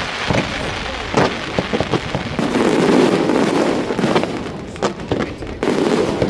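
Fireworks going off: a run of sharp pops and bangs, with a denser stretch of crackling noise through the middle and again near the end.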